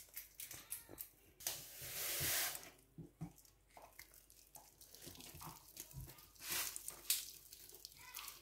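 Seasoning cube being crumbled by hand into a pot of batter: faint crinkling and rustling with small clicks, and one louder rustle lasting about a second near the start.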